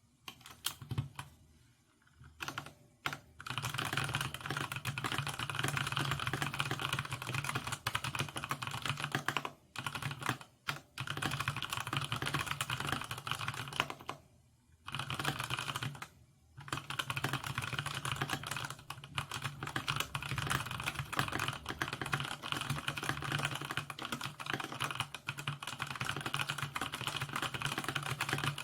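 Fast, continuous typing on an AJAZZ AK680 mechanical keyboard with tactile Tea (brown) switches: a dense, rapid clatter of key strokes. It starts with a few single key presses, then runs in long fast runs broken by a few short pauses.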